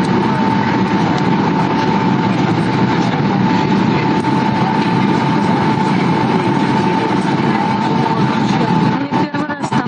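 Airliner cabin noise on the approach to landing: the steady rush of jet engines and airflow heard from inside the cabin, with a steady whine running through it. The sound briefly dips and flutters about nine seconds in.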